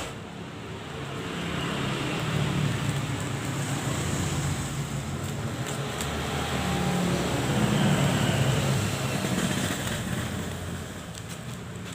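A motor vehicle going by: a low engine rumble and road noise that swell over a few seconds, peak near the middle and fade towards the end.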